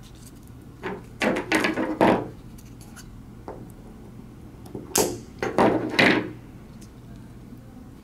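Scissors trimming 900-micron fan-out tubing on an optical fiber, with handling of the tubing and card. Two clusters of sharp clicks and short rubs, one about a second in and one about five seconds in.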